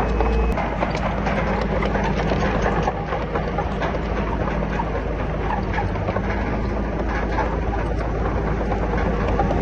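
Komatsu D31PX crawler bulldozer's diesel engine running steadily under a continuous metallic clatter of its tracks, easing slightly about three seconds in.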